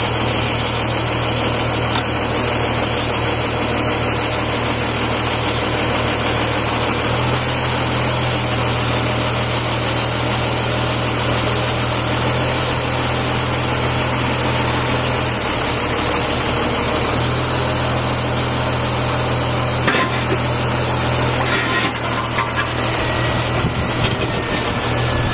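Engine driving the crane and clamshell grab hydraulics, running steadily, its note shifting several times as the hydraulics take load. About 20 and 21.5 seconds in come two sharp knocks as the steel grab bites into the brick and concrete rubble, followed by a faint whine.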